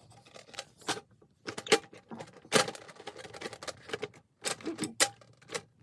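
Irregular metallic clicks, knocks and rattles of snare drum hardware being handled: screws and tension rods being worked by hand, with short gaps between the sounds.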